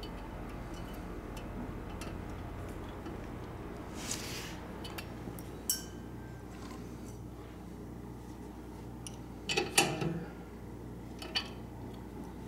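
Scattered light metallic clicks and clinks of a castle nut and hand tools being handled on a car's front suspension, while the nut's slot is lined up with the cotter pin hole. A short clatter of several clinks comes about ten seconds in and is the loudest moment, over a steady low hum.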